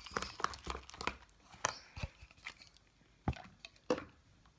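Sticky slime being kneaded and squeezed by hand in a plastic bowl while it is being activated: irregular wet clicks and smacks, thick in the first two seconds, then fewer and further apart.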